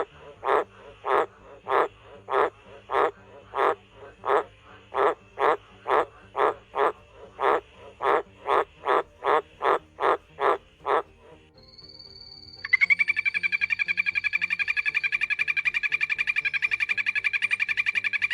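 A frog croaking in a regular series of short, rasping calls, a little under two a second, for about eleven seconds. After a brief pause a different, higher-pitched, fast-pulsing trill starts and carries on steadily.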